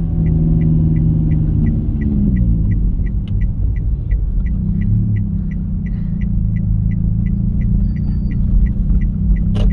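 Toyota Calya's engine running, heard from inside the cabin, its pitch falling about two seconds in as the car slows, with the turn-signal indicator ticking about three times a second throughout. The ticking stops with a single sharp click near the end, as the indicator cancels after the turn.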